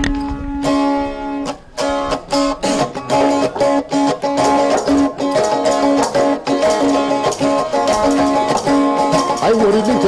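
Music led by a plucked string instrument, playing quick, evenly repeated notes over steady held tones.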